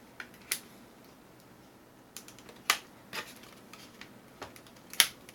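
A few separate sharp clicks and light knocks from an airsoft SIG MPX rifle being handled, its flip-up rear sight being worked. The loudest click comes near the end.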